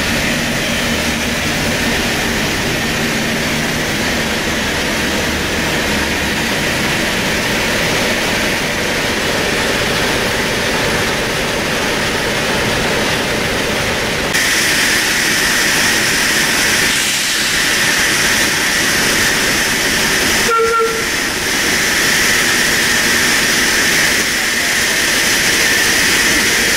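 Steam locomotives hissing steam: a steady hiss that turns brighter and louder about halfway through, with a brief short high tone about two-thirds of the way in.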